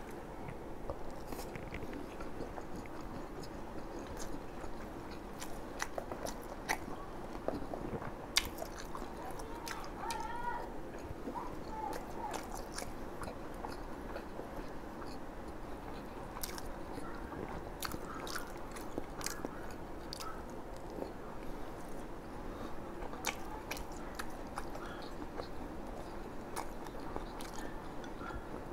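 Close-miked chewing and biting of bún đậu mắm tôm, with frequent sharp crunching clicks from fried tofu and other fried bites.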